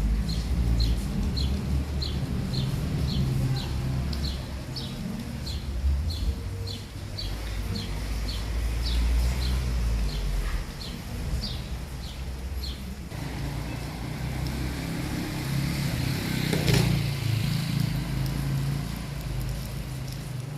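A small bird chirping over and over, about two short calls a second, over a steady low rumble. The chirping stops about two-thirds of the way through, and a brief louder noise follows a little later.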